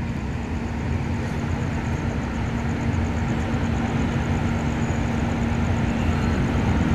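Vehicle engine noise: a low rumble with a steady, unchanging hum, slowly growing a little louder.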